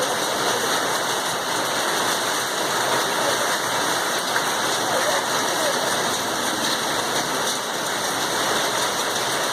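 Hailstorm downpour: rain and hailstones pelting down in a dense, steady patter with scattered small ticks.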